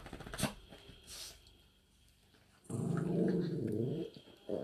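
A small dog vocalizing: one drawn-out growl-like call, rising then falling in pitch and lasting about a second and a half. A short knock comes about half a second in.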